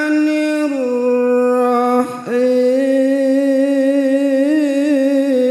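A man's voice reciting the Qur'an in drawn-out melodic tilawah style into a microphone, holding long ornamented notes with a wavering pitch, broken by a short breath about two seconds in.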